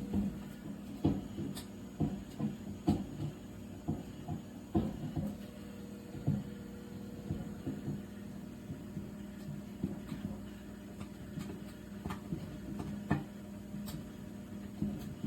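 Microwave oven running: a steady low hum with irregular knocks and bumps, more frequent in the first half.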